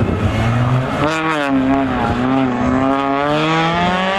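Peugeot 206 rally car's engine: about a second in, its note dips as the car brakes into a hairpin, then climbs steadily as it powers out of the bend.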